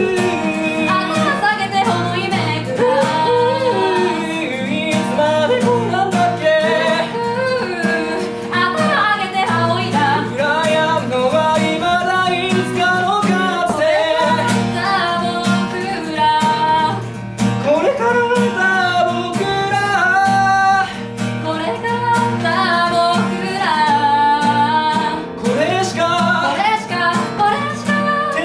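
A man singing a Japanese song over an acoustic guitar accompaniment.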